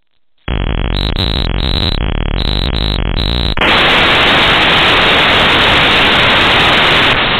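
Loud static on a telephone line, starting suddenly about half a second in: a harsher, buzzier noise at first, turning about three and a half seconds in to a steady hiss.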